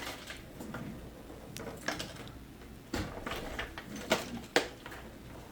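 Light handling noise of an old acoustic guitar: scattered small clicks and knocks, the sharpest two about four and four and a half seconds in.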